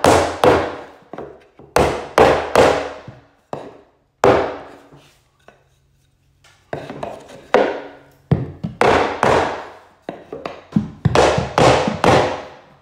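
Sharp wooden knocks as a wooden knocking block is struck up against crown molding at a miter, tapping the pieces into alignment to close the joint. The knocks come in quick groups of two to five, with a pause of about two seconds in the middle.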